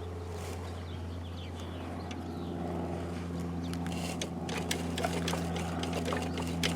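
A steady low engine hum, with a higher droning tone joining about two and a half seconds in and growing slightly louder, over scattered light clicks.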